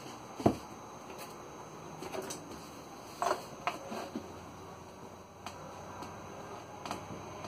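Light knocks and scrapes of a large wooden wagon-wheel cut-out being moved by hand across the scroll saw table, with the saw not running. The sharpest knock comes about half a second in, with a few softer ones later.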